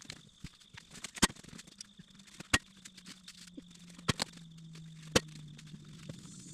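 Firewood logs being thrown onto a load: sharp wooden knocks, one every second or so, with a faint low hum underneath.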